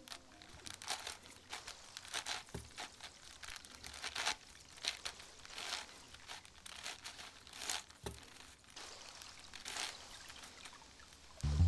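Plastic layers of a Sengso Mastermorphix 8x8 puzzle being turned by hand: irregular short plastic clicks and rasps, about two a second. Music comes in just at the end.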